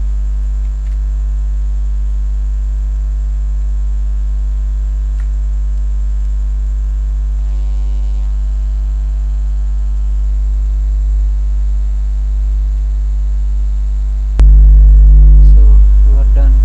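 Steady low electrical mains hum with a stack of overtones, picked up on the recording's audio line. About fourteen seconds in it abruptly jumps much louder.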